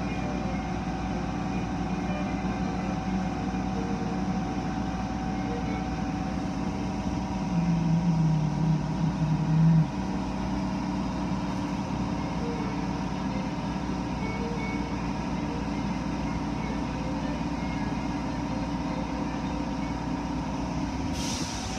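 Automatic tunnel car wash machinery running, heard from inside a car: a steady mechanical hum with several steady tones, and a louder low drone for about two seconds near the middle.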